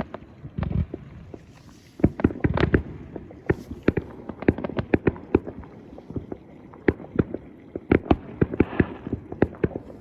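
Fireworks going off: a rapid, irregular run of sharp bangs and crackling pops, with deeper booms about half a second and two seconds in.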